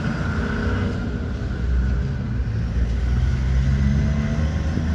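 Engine and road noise of a moving road vehicle, heard from inside its cabin: a steady low hum that gets a little louder about two seconds in.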